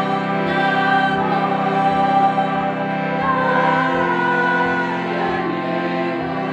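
Music: a slow, gliding melody over a steady low drone.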